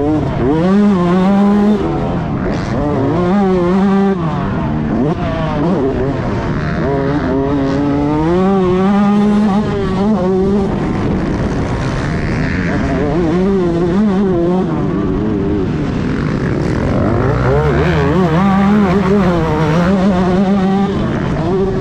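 Yamaha YZ125 two-stroke motocross bike engine under hard riding, its pitch climbing and dropping over and over as the throttle is worked and the gears change.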